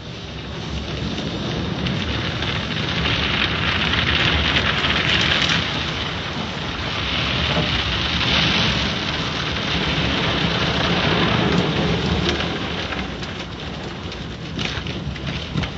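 Automatic car wash working over the car, heard from inside the cabin: a steady rush of water and foam beating on the windshield and body, swelling and easing several times as the wash moves across.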